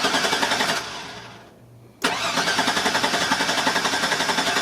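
The 2001 GMC Sierra's 4.3-litre V6 being cranked by the starter without catching, in two tries: a short crank that fades out about a second in, then a longer crank of about three seconds starting about two seconds in. It cranks but won't start because the fuel pump has failed.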